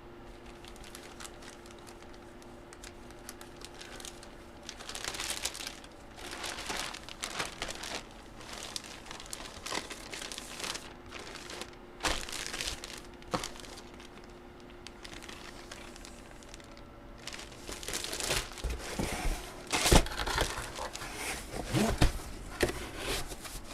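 Plastic trading-card wrapping crinkling irregularly as packs are opened and cards handled. It gets busier in the second half, with a few sharp knocks near the end.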